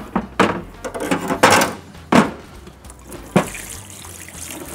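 Kitchen items clattering as a worktop is cleared: a series of knocks and bumps, about six in the first three and a half seconds, ending with a plastic chopping board set down against the back counter.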